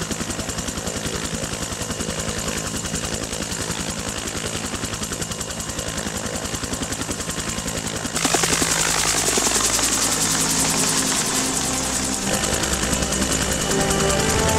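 UH-1 Huey helicopter with its two-blade rotor beating in a fast, steady rhythm. About eight seconds in, this gives way to a louder turbine whine whose pitch falls over a few seconds. Music comes in near the end.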